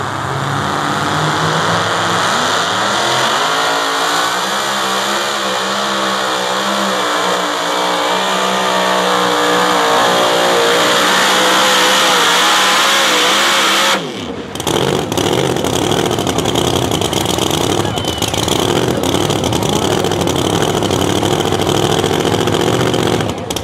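Supercharged engine of a super modified two-wheel-drive pulling truck at full throttle pulling the sled, its pitch climbing and wavering as the load and wheel speed change. About 14 seconds in, the sound breaks off abruptly, and a rougher, noisier engine sound follows.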